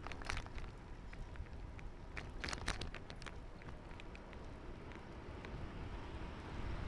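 Riding a bicycle: low rumble of wind and tyre noise on the microphone, with irregular clicks and rattles, a cluster of them about two and a half seconds in.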